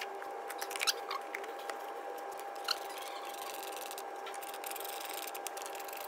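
Light clicks and plastic knocks of an airbox cover being set back on and its small screws run down with a nut driver, over a steady faint whine.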